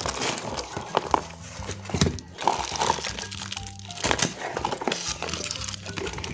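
Background music, with a cardboard box and its packing rustling and knocking as it is handled and opened; a couple of sharper knocks come about one and two seconds in.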